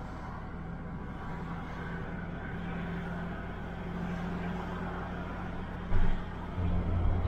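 Engine and road noise heard from inside the cab of a car towing a trailer: a steady low drone, with a few low thumps about six seconds in and again near the end.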